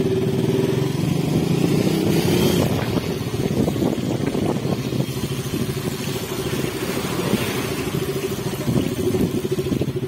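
Motorcycle engine running steadily at low revs.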